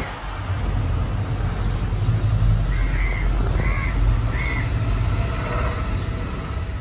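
A crow cawing three times in quick succession near the middle, over a steady low rumble.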